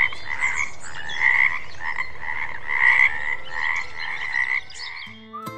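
Frogs croaking loudly, a repeated pulsing croak about twice a second that fades out near the end.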